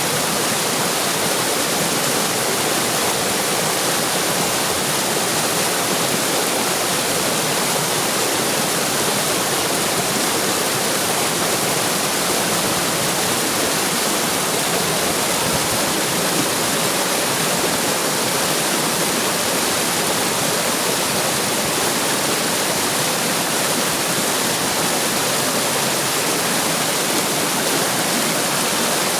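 Running water splashing in a stream or small waterfall: a loud, steady rush and splash that stays even throughout.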